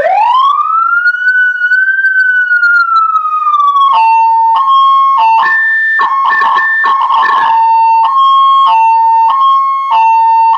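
Efir Zura 3 EF-100r electronic siren driving an Elektra LZ20GW loudspeaker. It sweeps up in one wail cycle and then slowly falls. About four seconds in it switches to a hi-lo two-tone pattern that changes pitch a little under twice a second, with a higher tone and crackle layered in for a couple of seconds midway. The siren cuts off abruptly at the end.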